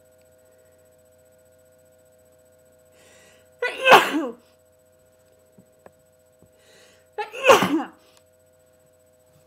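A person sneezing twice, unstifled and loud, each sneeze led by a short breath in. The first comes about four seconds in and the second about three and a half seconds later. The sneezes come with a head cold.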